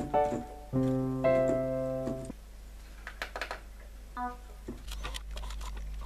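Korg 01/W FD synthesizer playing its 8' Piano program: two sustained piano chords in the first two seconds or so. After that it goes quieter, with a few clicks and one short note about four seconds in.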